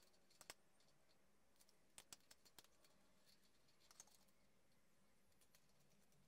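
Near silence with scattered faint small clicks of metal parts and screws being handled as a drag-chain bracket is fitted to a CNC router's aluminum Z-axis plate. There is a cluster just after the start, another around two seconds in, and one more about four seconds in.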